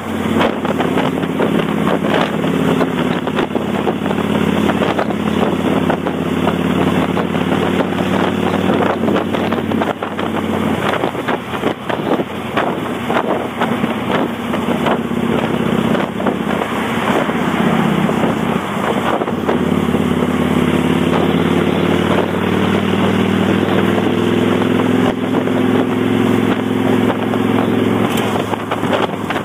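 Kawasaki Vulcan 800's V-twin engine running on the road through Vance & Hines Straight Shots pipes with the baffle plugs removed, with wind buffeting the microphone. The engine note drops about ten seconds in and climbs again a little past the middle.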